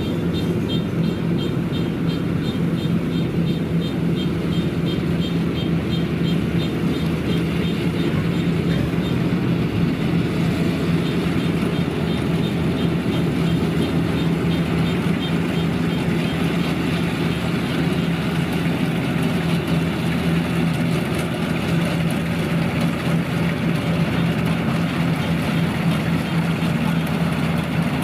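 Kubota DC-93 rice combine harvester's diesel engine running steadily under load while harvesting, a constant heavy drone. Over the first several seconds a light high-pitched ticking comes about four times a second.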